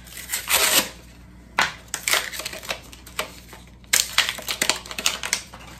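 Crinkling, crackling handling noise with rapid clicks, in three bursts: craft supplies being handled on a countertop.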